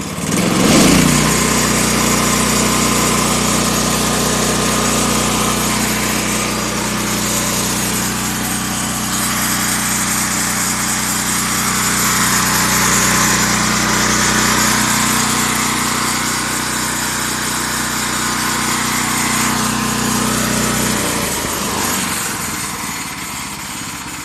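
Predator 420cc single-cylinder gasoline engine on a bandsaw mill, revving up about a second in and then running steadily at high throttle. Near the end it is throttled back and drops to a lower, quieter idle.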